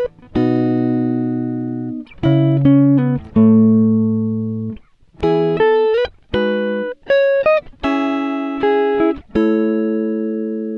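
Background music: a guitar playing plucked notes and chords, each ringing and fading, in short phrases separated by brief pauses.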